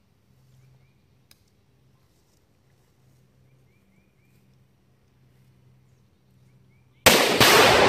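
A quiet stretch with a faint low hum and a few faint chirps, broken about seven seconds in by a sudden, very loud blast as 20 pounds of Tannerite detonates. A second sharp crack follows a fraction of a second later, and a rumble keeps rolling away after it.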